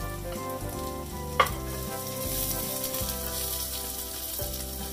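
Diced red onion frying with minced garlic in hot oil in a pot, sizzling as it is stirred with a spoon; one sharp clack of the spoon against the pot about a second and a half in, and the sizzle grows louder after it.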